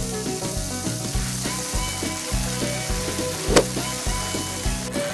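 Sizzling sound effect of steak frying on a barbecue grill, as a steady hiss over background music with a steady beat. One sharp click about three and a half seconds in.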